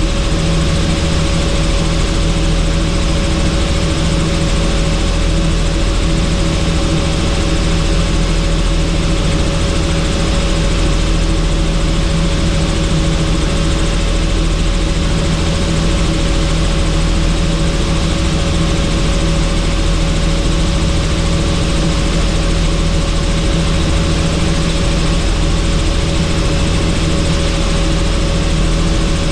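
Helicopter in flight heard from on board: steady, loud rotor and engine noise with a constant hum of a few fixed tones over a low rumble.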